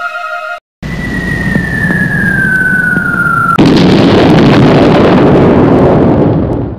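Edited sound effect: a descending whistle over a rumble, then a sudden loud explosion blast at about three and a half seconds that dies away over the next three seconds.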